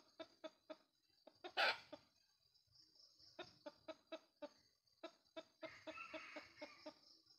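Junglefowl rooster clucking in quick runs of short, low clucks, about four a second, with a short louder burst about one and a half seconds in. A steady high-pitched buzz runs underneath.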